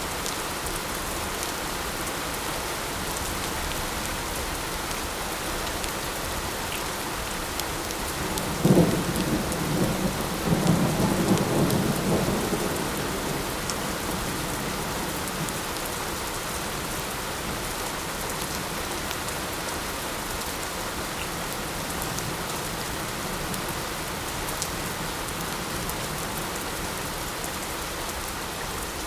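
Steady light rain hissing, with a roll of thunder about nine seconds in that starts with a sharp crack and rumbles on for about four seconds.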